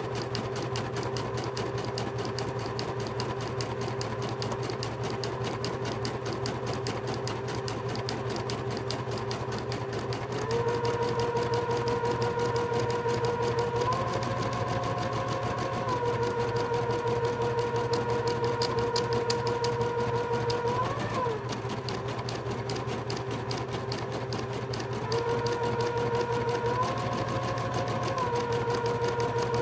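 Computerized embroidery machine stitching a design in a hoop: rapid, even needle strokes over a steady motor hum. The motor's whine steps up and down in pitch several times, louder from about ten seconds in.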